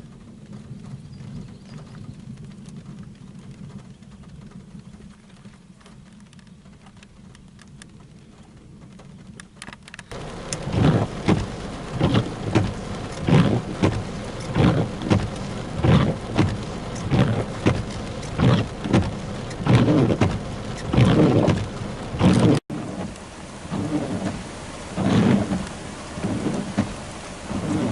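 Heavy rain in a thunderstorm. About ten seconds in, it grows louder and takes on a regular swish that repeats a little more than once a second.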